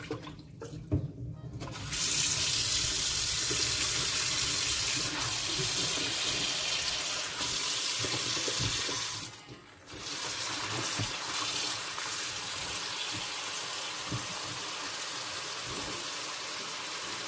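Kitchen mixer tap running into a stainless steel sink, the stream splashing onto lettuce in a metal bowl as it is rinsed after a vinegar soak. A few light knocks come first, the water starts about two seconds in, cuts out briefly around the middle, then runs on steadily.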